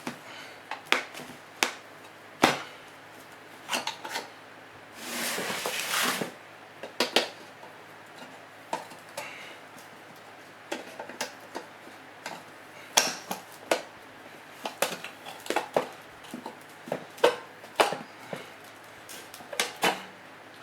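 Sheet-steel lid of a sealed surplus ammunition spam can being worked open with a hand tool: irregular metallic clicks and knocks, with one longer tearing scrape of metal about five seconds in.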